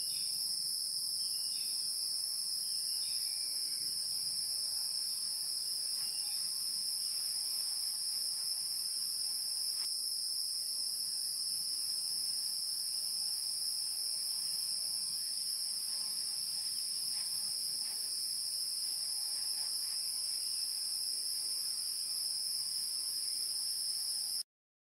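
Steady, high-pitched drone of an insect chorus that cuts off suddenly near the end.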